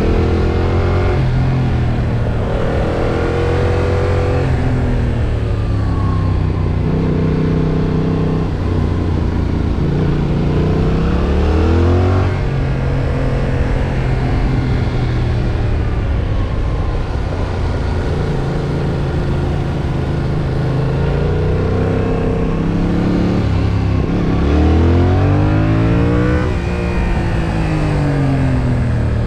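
Yamaha MT-07's 689 cc parallel-twin engine revving under hard acceleration and backing off, over and over: the pitch climbs, drops at the shifts and falls away on deceleration.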